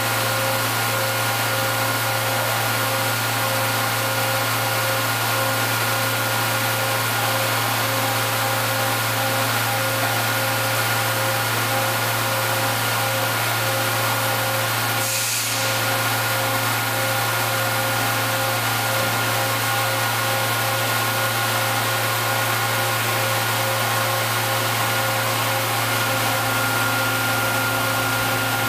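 Steady machine hum and whir, with a few thin whining tones held throughout, from a running Niigata HN100B horizontal machining center and its six-pallet shuttle system as the pallets are moved. A brief hiss cuts in about halfway through.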